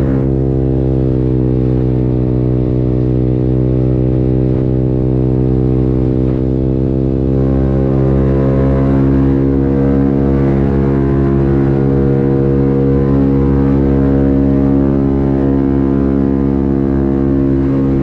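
Italjet Dragster 125 cc scooter's engine heard through an Akrapovic racing slip-on muffler with its baffle removed, running on the move at a fairly even speed, its pitch drifting only slightly up and down. Ridden inside a road tunnel.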